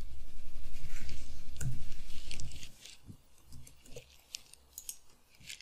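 Computer keyboard and mouse clicks: a fast, even run of clicks for about two and a half seconds, then a few scattered single clicks.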